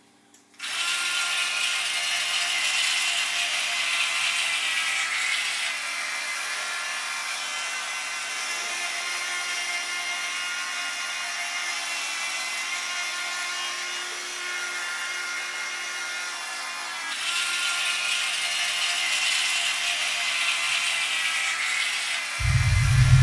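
Electric toothbrush buzzing steadily after it is switched on. The buzz turns duller and quieter for a long stretch while the brush is in the mouth, then brightens again. Near the end a loud deep rumble comes in under it.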